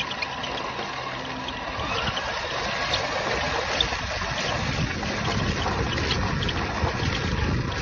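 RC pickup truck driving with the camera on board: its tyres rolling over a rough, gritty road surface with a faint whine from its motor. Wind buffets the microphone, growing stronger from about five seconds in as the truck gathers speed.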